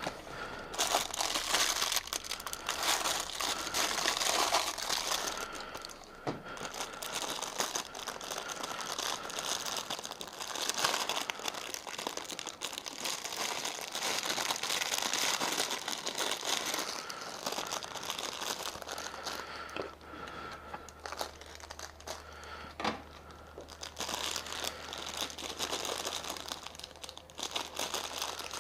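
Irregular crinkling and rustling of material being handled, with brief pauses.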